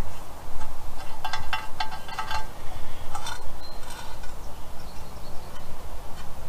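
Metal clinking and light ringing from an air cleaner's metal lid and centre wing nut being fastened, in a quick cluster of clicks between about one and two and a half seconds and a few more around three seconds. A steady low rumble runs underneath.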